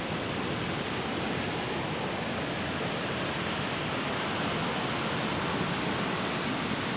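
Steady rushing of a muddy river in flood, running high and fast after heavy rain.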